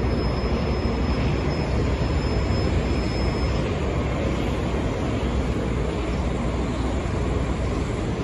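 Steady rumble from a New York City subway train running on elevated track, with a thin, high, steady whine that stops about three and a half seconds in.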